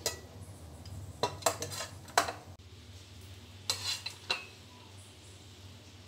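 Metal ladle clinking and scraping against a steel cooking pot while chicken curry is ladled out. The clinks come in two bunches, about a second in and again near four seconds in.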